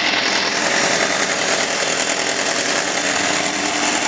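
Electric kitchen mixer running steadily, its beaters whirring through cake batter.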